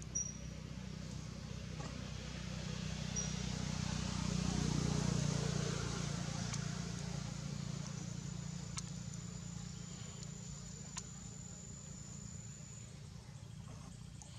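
A motor vehicle passing in the distance: a low engine hum swells to a peak about five seconds in and slowly fades away. A thin, high, steady insect tone comes in for a few seconds in the second half, with a few faint clicks.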